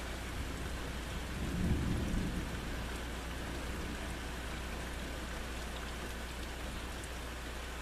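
Steady rain falling, with a short low rumble of thunder swelling up about two seconds in.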